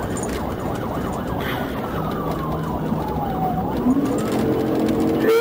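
Police cruiser siren wailing in slow falling and rising sweeps, over the patrol car's engine and road noise during a high-speed pursuit.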